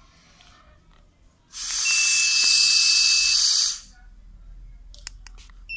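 A person blowing steadily into the mouthpiece of an ALP-1 breathalyzer for about two seconds: a loud breathy hiss with a steady high beep from the device running through most of the breath. A few clicks and a short beep follow near the end.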